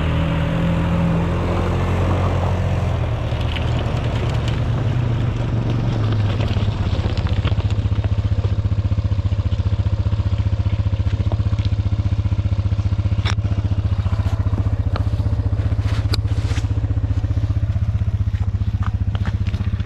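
Single-cylinder ATV engine running while riding. Its pitch shifts over the first few seconds, then it holds steady. A few sharp clicks come about two-thirds of the way in as the machine runs over frozen ground.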